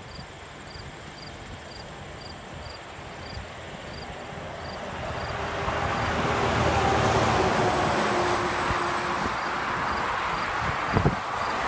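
Tractor-trailer passing on a highway, its rushing tyre and engine noise swelling to a peak and easing off with a falling pitch. An insect chirps steadily a little over twice a second underneath, and there are a couple of brief knocks near the end.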